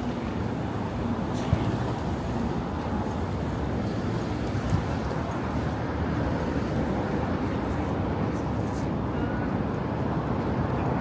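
Steady city street noise of passing road traffic, with a couple of faint knocks.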